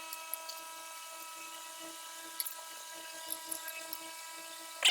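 A steady, even whine at one unchanging pitch with a few faint metallic ticks.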